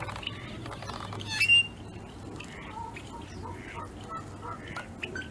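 Yellow-headed blackbirds calling: many short call notes, with one loud call about one and a half seconds in.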